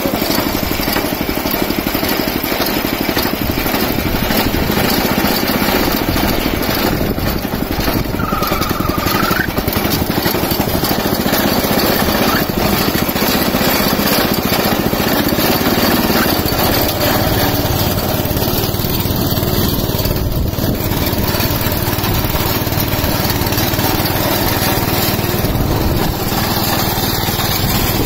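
Small walk-behind rice reaper's engine running steadily under load as the machine cuts and lays down rice stalks.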